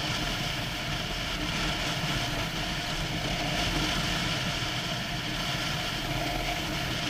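Motorcycle engine running steadily while riding down the street, mixed with wind and road noise on the bike-mounted camera.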